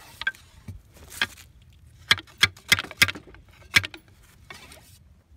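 Chain shot (lead balls joined by a chain) being rammed down a black-powder cannon's bore with a wooden rammer: a string of sharp metallic clinks and knocks as the chain and balls rattle in the barrel.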